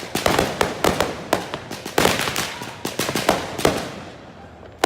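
Fireworks going off in a rapid barrage of sharp bangs and crackles. The barrage thins out and quietens a little before four seconds in, and one more loud bang comes at the very end.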